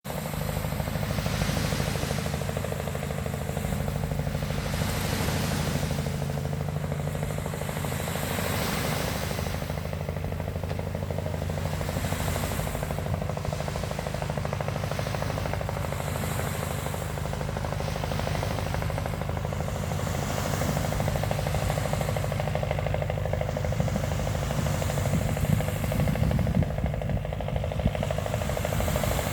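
Fishing boat engine running steadily with a fast, even thumping, over a hiss of waves that swells and fades every few seconds.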